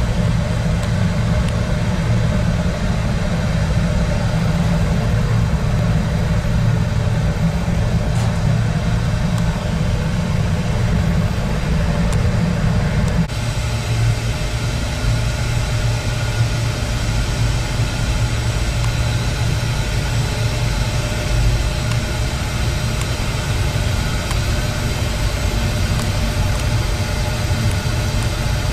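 Steady running of machinery at a biomass gasification plant, a loud hum with several steady tones; about 13 s in the deepest part of the hum drops away and the running carries on.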